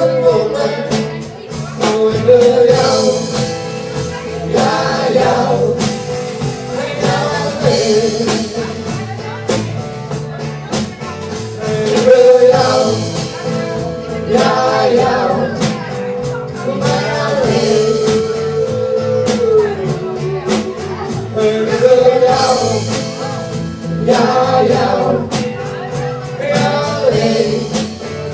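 Live band playing a rock song: a man sings lead, with a woman's voice joining in, over guitars and drums.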